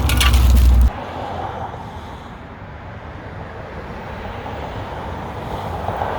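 Wind buffeting the microphone with a loud low rumble that cuts off abruptly about a second in, followed by a steadier, quieter outdoor hiss.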